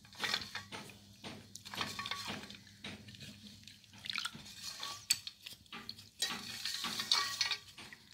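Broken terracotta clay pot shards being rubbed and rinsed by hand in a steel basin of water: irregular splashing and dripping, with light clinks of clay against the metal.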